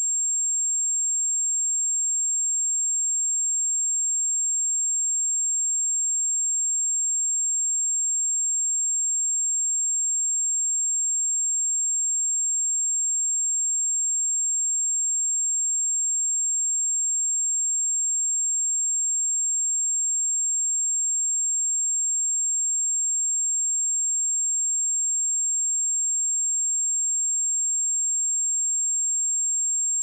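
Steady, unbroken 7462 Hz sine-wave test tone, a single high-pitched pure tone with no change in pitch or loudness.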